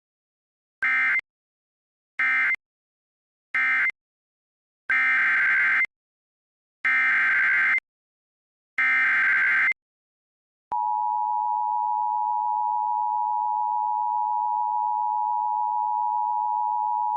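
Emergency Alert System (SAME) digital data bursts. First come three short screeching bursts, which are the end-of-message code for the previous alert. Then come three longer header bursts of about a second each for the next alert, and after a short pause the steady two-tone EAS attention signal starts about two-thirds of the way in and holds.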